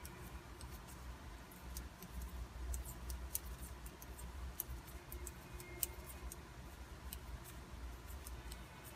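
Metal double-pointed knitting needles clicking faintly and irregularly against each other as knit stitches are worked in the round, over a low steady hum.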